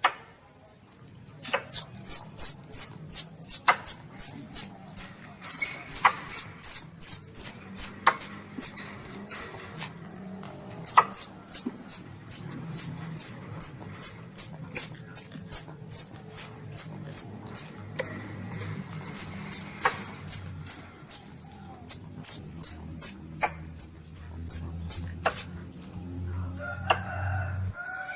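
Baby Asian palm civet calling: a fast run of shrill squeaks, about three to four a second, broken by a couple of short pauses, over a low hum.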